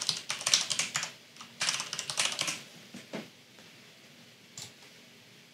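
Computer keyboard typing in quick runs of keystrokes for about two and a half seconds, then two single clicks.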